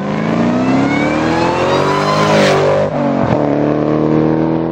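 A car engine accelerating: its pitch rises steadily for about two and a half seconds, dips briefly around three seconds in, then holds steady.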